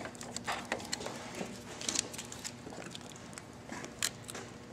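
Utility knife cutting through a rubber wire grommet, with irregular small clicks and scrapes of the blade and handling of the wires, over a faint steady hum.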